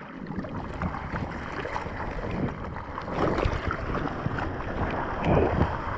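Water splashing and sloshing close to the microphone as a bodyboarder paddles hard with his arms, the splashing growing louder and busier over the few seconds.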